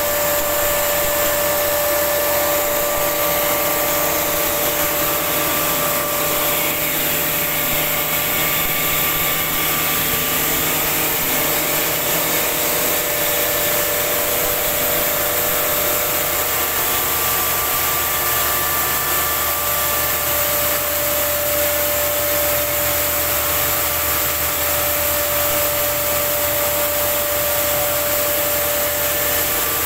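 Electric atta chakki flour mill with its cyclone system running steadily: the belt-driven electric motor and mill make a constant whine over an even rushing noise.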